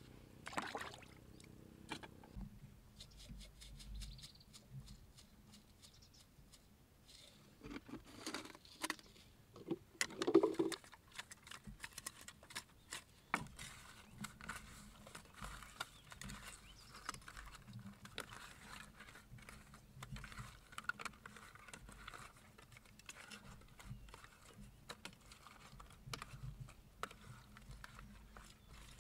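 Small fish being cleaned by hand: a knife scraping and tapping against a wooden board, then the fish rubbed and rinsed in a pot of water, giving many small clicks, scrapes and light splashes, with a brief louder clatter about ten seconds in.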